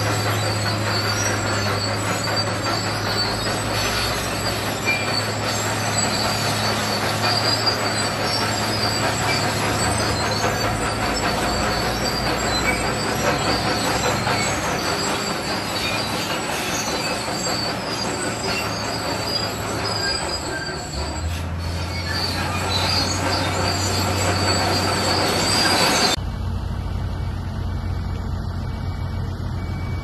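Zoomlion crawler bulldozer pushing rock and dirt: its diesel engine runs under load while the steel tracks grind and squeal. About four seconds before the end the sound cuts abruptly to a steadier low engine hum, with the squealing gone.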